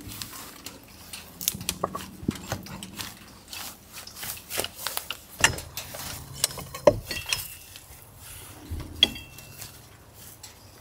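Scattered knocks, scrapes and clinks of concrete pier blocks and metal post brackets being worked into place by hand, with a brief metallic ring about nine seconds in.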